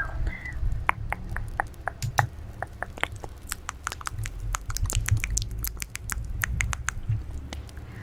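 ASMR mouth sounds close to the microphone: a string of irregular wet clicks and smacks of lips and tongue, a few each second, over a low steady rumble.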